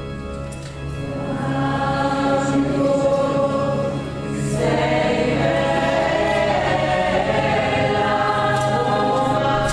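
Choir singing sacred music, a new phrase beginning about halfway through.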